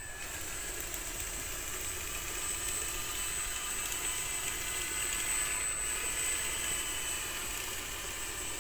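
A small motor running steadily, with a thin high whine.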